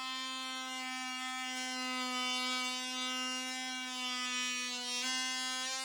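Background music: a sustained buzzy drone under held chords, with the chord changing about five seconds in.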